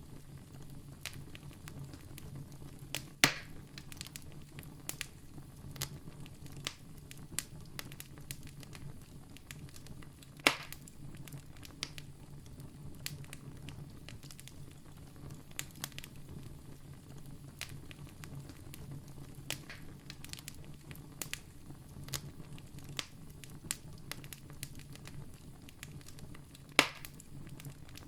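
Wood campfire crackling: a steady stream of small snaps with three louder pops, about 3, 10 and 27 seconds in, over a low steady rumble.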